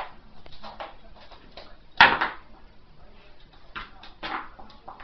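Sharp knocks and thumps on a wooden floor from a Staffordshire bull terrier pouncing on a bone. One loud knock comes about two seconds in, and a few softer knocks follow near the end.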